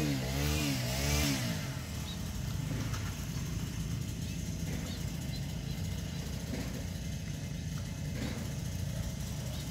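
A small engine running steadily and evenly at low speed, a low hum with no revving.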